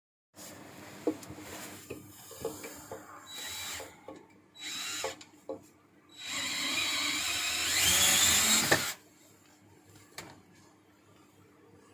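Cordless drill driving a cable-stripping machine: several clicks and knocks of handling, then the drill runs for about three seconds with a rising whine and stops abruptly.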